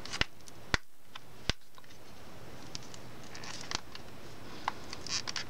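Fingers picking at a sticker on a plastic CD jewel case: a scatter of sharp plastic clicks and ticks, with a couple of short scratchy rubs in the second half as a fingernail works under the sticker's edge.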